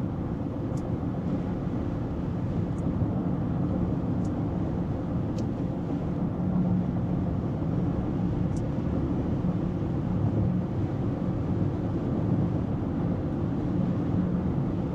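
Steady road and wind noise inside the cabin of an electric Rivian R1S cruising at about 65 mph on the freeway, including a little wind noise from its roof crossbars.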